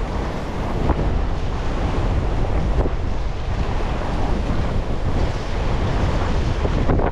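Strong wind buffeting the microphone in a steady low rumble, over choppy water sloshing against a concrete bridge pylon.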